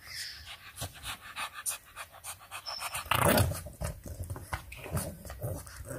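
Two English bulldog puppies play-wrestling, breathing hard through open mouths, with many short clicks and rustles and a louder breathy burst about three seconds in.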